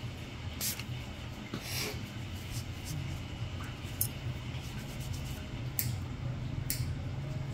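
A handful of sharp clicks and taps of metal pedicure instruments handled near a toenail, over a steady low hum.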